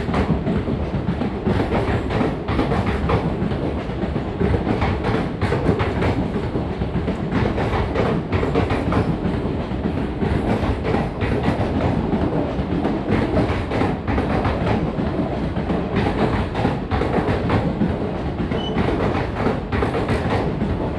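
Indian Railways passenger coaches rolling past along the platform, with a steady rumble and a continuous run of wheel clicks as the steel wheels cross the rail joints.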